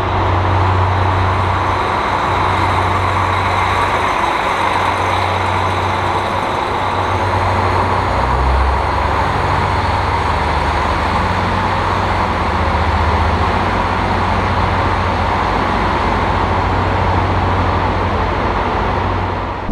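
Diesel engine of a KiHa 40 railcar running steadily with a low hum as the railcar pulls out of the platform.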